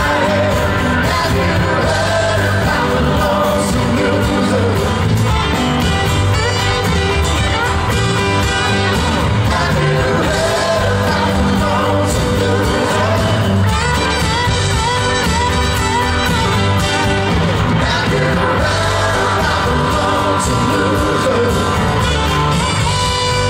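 Live soft-rock band playing with sung lead vocals: drums, electric and acoustic guitars and keyboards, heard from the audience in a large outdoor venue.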